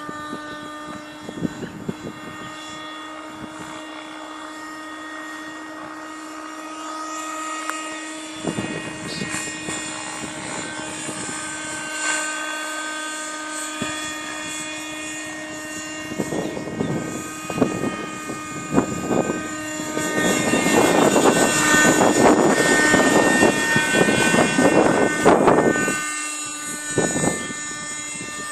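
Thunder Tiger Raptor 30 RC helicopter in flight: its .30 nitro two-stroke glow engine and rotors give a steady high-pitched whine. For several seconds in the second half the sound gets louder and rougher.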